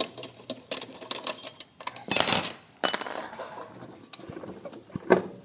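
Scattered metallic clicks and knocks of hand work on a scooter's CVT, with a short scraping burst about two seconds in and a sharp ringing clink just under three seconds in.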